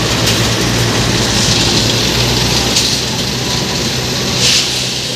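JCB 3DX backhoe loader's diesel engine running steadily as the machine drives on the gravel yard, with a few short bursts of hiss, the strongest about four and a half seconds in.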